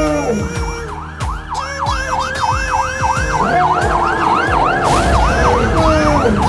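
A siren yelping, rapid up-and-down wails about three times a second, starting about a second in, over a beat with regular low thumps.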